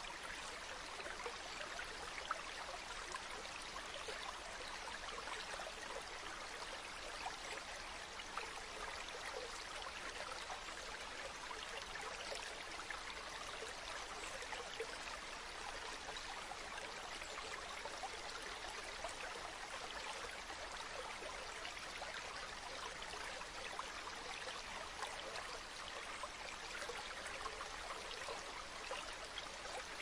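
A small stream spilling over wet rocks in a low cascade: a steady trickling and splashing of water, flecked with small droplet splashes.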